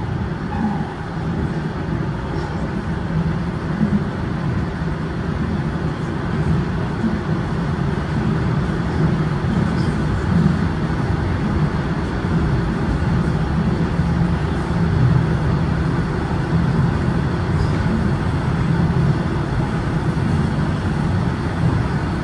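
TTC Line 1 subway train running, heard from inside the car: a steady rumble of wheels and traction motors that grows gradually louder.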